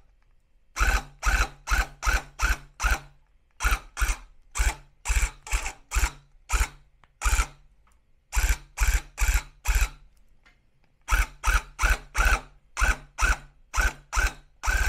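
Handheld electric tufting gun run in short taps of the trigger: about two brief buzzing bursts a second, in four runs with short pauses between. The trigger is tapped rather than held so the gun stays under control while tufting yarn around a curve.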